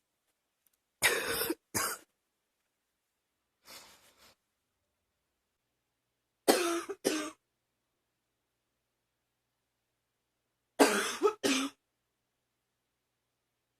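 A girl coughing in three short bouts a few seconds apart, each of two or three coughs.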